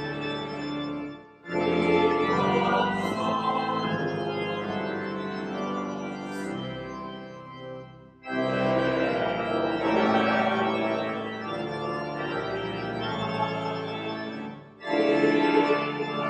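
Church organ playing a hymn in long phrases, with the choir and congregation singing along; the music breaks off briefly between phrases, about a second in, about eight seconds in and near the end.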